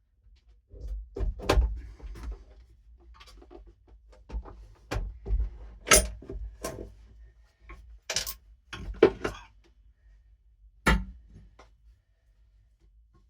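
Irregular knocks, thumps and scraping as a heavy 15-inch car-audio subwoofer, about 85 pounds, is handled and worked into its enclosure. The sharpest knocks come about a second and a half in, at six seconds, and near eleven seconds.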